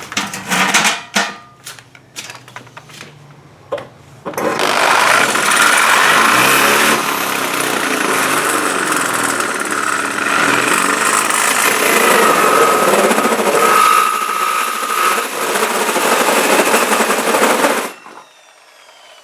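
Corded power drill driving a 90 mm hole saw into the vehicle's sheet-metal body panel. After a few clicks and knocks, the saw cuts with a loud grinding noise for about fourteen seconds, then stops suddenly.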